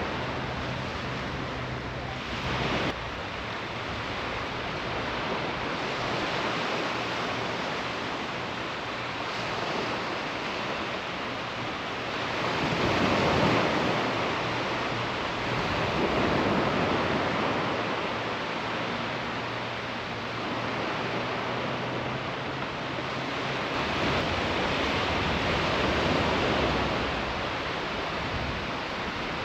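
Surf breaking and washing up a sandy beach, swelling every few seconds, with some wind buffeting the microphone.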